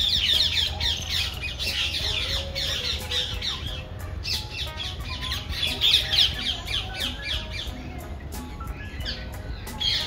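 A flock of caged birds in an aviary chattering and squawking in a dense, continuous mass of quick high calls. There is a short break about four seconds in, and the calling thins out near the end.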